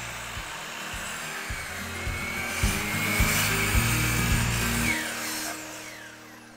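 DeWalt sliding compound miter saw running, its blade cutting through a wooden board, with a high whine that swells midway and fades near the end. Background music plays with it.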